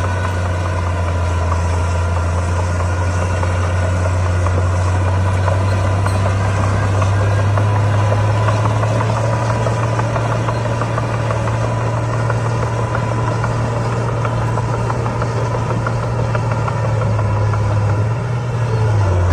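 Heavy diesel engine running steadily with a deep, even hum, its pitch rising briefly and dropping back near the end.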